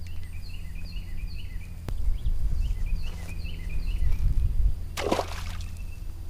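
Wind buffeting the microphone in a steady low rumble, with a run of short high chirps in the first half. About five seconds in comes a short splash of water, the loudest sound.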